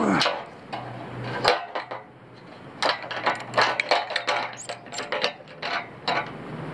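Sharp metal clinks from locking pliers working a chain quick link and a pulley against the end of an aluminium pole. Two clinks near the start, then a quick, irregular run of clinks for about three seconds.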